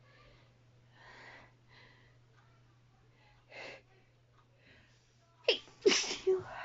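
A woman's sneeze: soft breaths and one audible intake of breath, then about five and a half seconds in a voiced, falling 'ah' and a loud, sudden sneeze burst.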